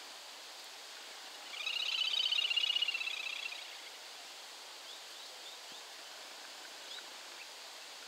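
Little grebe giving its rapid, high-pitched whinnying trill for about two seconds, swelling and then fading, followed by a few faint short chirps.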